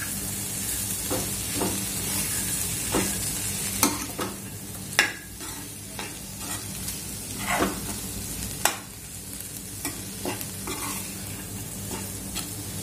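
Steel spoon stirring and scraping dried prawns, potatoes and masala in a kadhai while the oil sizzles steadily under them. The spoon knocks against the pan at irregular moments, most sharply about five seconds in and again near nine seconds.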